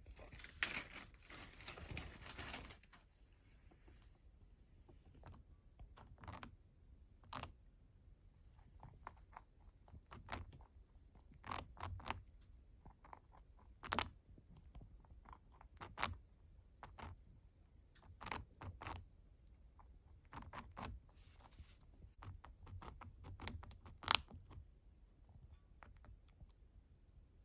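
Pet rabbit chewing: short crisp crunches at irregular intervals, with a longer scratchy stretch in the first few seconds.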